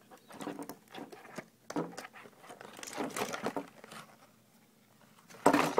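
Packaging being handled and unpacked: irregular rustling of paper with small clicks, and a louder rustle near the end.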